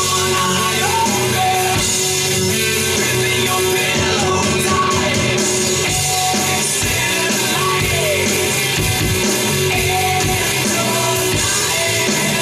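Rock song with a singing voice, the drum part played live on an electronic drum kit heard through its amplifier.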